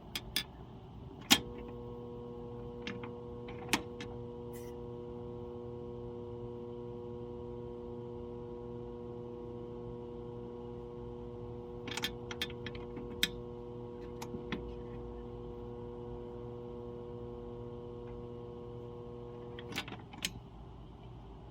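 Old Trane AC/heater combo unit's fan motor switching on with a click and running with a steady electric hum, turning again after dirt that had stalled it was cleaned out. It is switched off with another click near the end, with a few small clicks midway.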